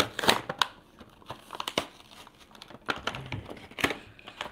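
Clear plastic blister packaging on a die-cast toy car's card crinkling and crackling as it is handled, in a series of irregular clicks and crackles.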